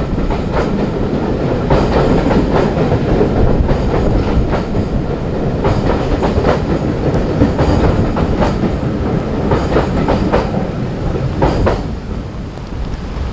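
Train rolling past, its wheels clicking over the rail joints above a steady rumble; it eases off a little near the end.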